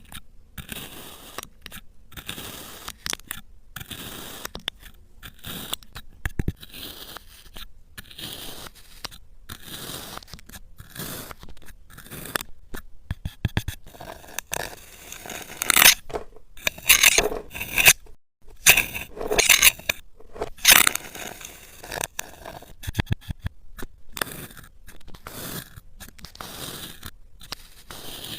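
Kinetic sand being cut and scraped, a long series of short crunching, scraping strokes, the loudest and sharpest crunches coming a little over halfway through.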